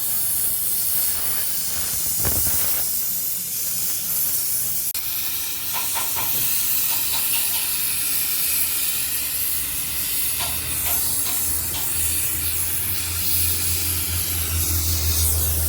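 Welding arc hissing steadily while a crack in an aluminium alloy motorcycle rim is welded, with a low hum coming in about ten seconds in.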